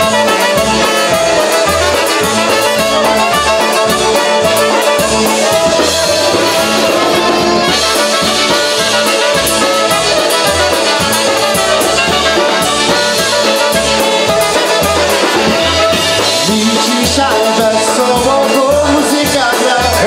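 Live polka band playing: trumpet and clarinet lead over saxophone, piano accordion and concertina, with a steady drum beat underneath.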